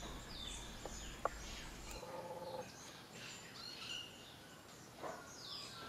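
Faint outdoor ambience with small birds chirping and calling now and then.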